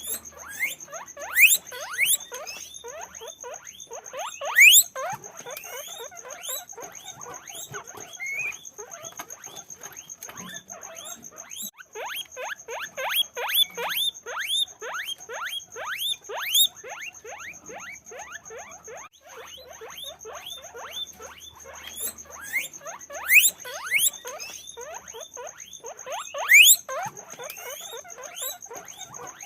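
Guinea pigs squeaking continuously: many short, rising squeaks a second, overlapping as from several animals, with a few louder, piercing squeals.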